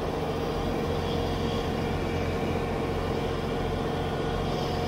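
Kubota BX23S's three-cylinder diesel engine running steadily under load, driving its front-mounted snowblower as it throws snow, heard from inside the tractor's enclosed cab. A steady drone with a constant hum throughout.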